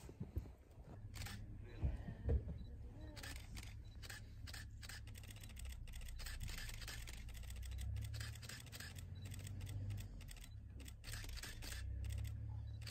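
Camera shutters clicking in quick, irregular runs over a low steady rumble.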